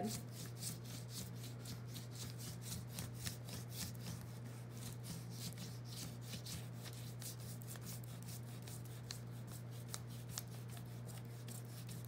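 Red wax crayon rubbed quickly back and forth over printer paper laid on a leaf: a steady, faint scratching of rapid strokes. A steady low hum runs underneath.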